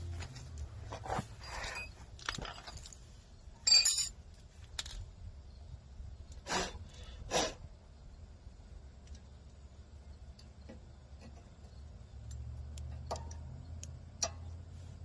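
Scattered metallic clinks and light knocks of brake pads and their hardware being handled and set into a car's rear caliper bracket. The loudest clink comes about four seconds in, with a couple more a few seconds later and one near the end.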